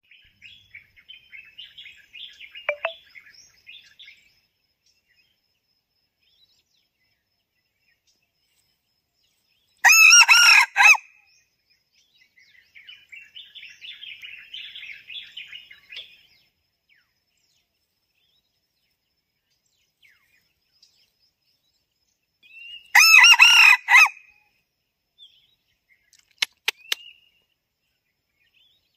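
Red junglefowl rooster crowing twice, each a short crow of about a second, the two some thirteen seconds apart. Small birds twitter softly in between.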